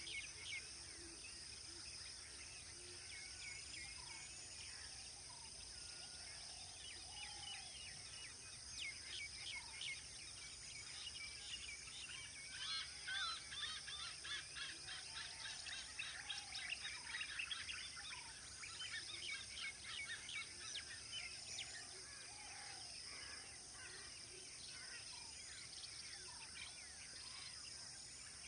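Several birds calling and chirping over a steady high insect drone. The rapid chirping is thickest in the middle stretch.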